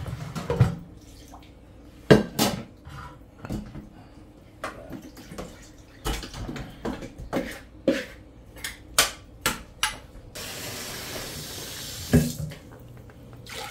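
An aluminium pressure cooker and a metal spoon clattering and knocking at a kitchen sink as cowfoot is spooned into the pot. About ten seconds in, a tap runs steadily for a couple of seconds, followed by one more knock.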